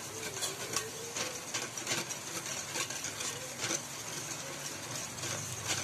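Wire whisk beating a runny egg and milk batter in a bowl: wet swishing with light clicks of the whisk against the bowl, about two strokes a second.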